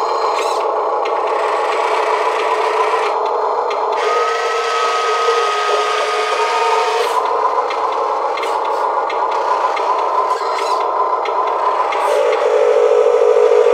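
1/16-scale Amewi Mercedes-Benz Arocs RC tipper truck running with its dump bed tipping up: a steady mechanical buzzing and whirring, with a thin whine from about four to seven seconds in and a louder buzz near the end.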